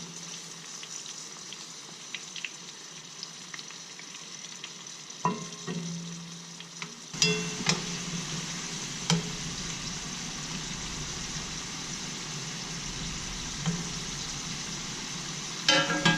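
Homemade ground-beef hamburger patties sizzling as they fry in hot oil, a steady crackling hiss that grows fuller about halfway through, with a few sharp clinks and taps. A few pitched notes of music come in at the very end.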